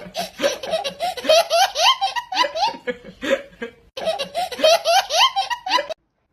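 Someone laughing hard in rapid, high-pitched bursts, with a short break about four seconds in, cutting off suddenly about six seconds in.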